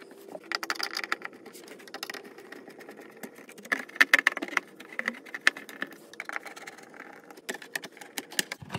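Plastic covers of an RV power distribution panel being handled, fitted and screwed into place with a screwdriver: irregular clicks, knocks and scraping of plastic on plastic.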